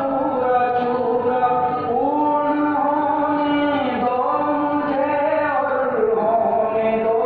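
A voice chanting in long, held notes that glide slowly between pitches, as backing music.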